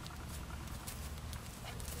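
Tennessee Walker cross pony gelding walking on grass: soft, scattered hoofbeats over a steady low rumble.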